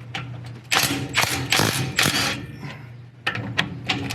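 Hand ratchet wrench clicking in two quick runs as the differential bearing cap bolts are loosened.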